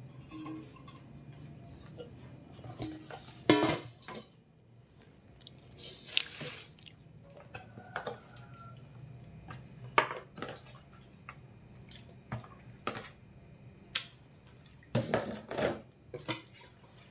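Cookware being handled: a stainless steel pot clanks onto the stove and raw chicken pieces are tipped into it from a plastic container, heard as a string of separate knocks and clinks with a rustling patch about six seconds in.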